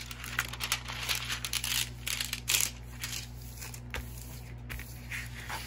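Crinkling and rustling of a diamond painting canvas and its clear plastic protective film as it is unfolded and smoothed flat by hand, in irregular rustles that mostly fall in the first three seconds.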